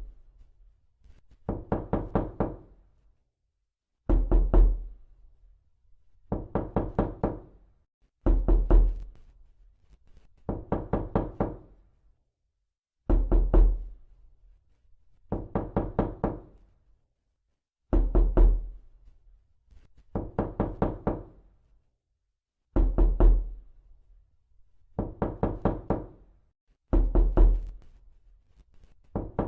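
Knocking in quick bursts of about four or five raps, a burst roughly every two seconds. The bursts alternate between a heavier, deeper one and a lighter one.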